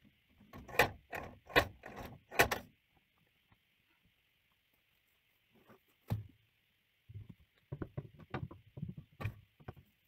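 Knocks and rattles of a metal sheep-handling chute and its gates being worked by hand: three loud bangs in the first few seconds, a single knock about six seconds in, then a quick run of lighter knocks.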